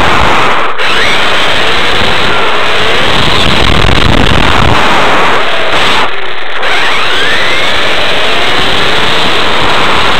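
Onboard sound of a brushless-powered Kyosho Inferno GT RC car driving: a loud rush of drivetrain and road noise with a motor whine that rises and falls in pitch as the car speeds up and slows through turns. It eases off briefly just under a second in and again about six seconds in.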